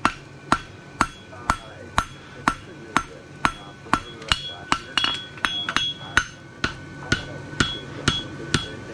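Farrier's hammer striking 3/8 by 1 inch steel bar stock on an anvil, drawing down a section of a bar shoe. Steady blows about two a second, each with a metallic ring.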